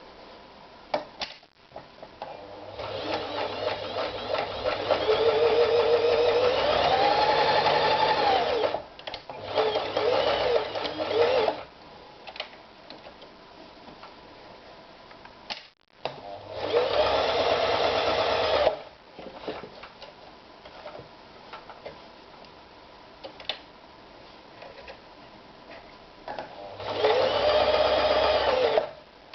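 Toyota EX 390 sewing machine stitching in separate runs: a long run starting about 3 s in that speeds up midway, a short run right after, then two shorter runs with pauses between.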